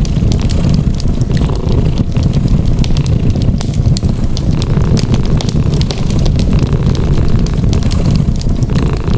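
A cat's steady low purring layered with a crackling fireplace fire, frequent small pops and snaps over the purr.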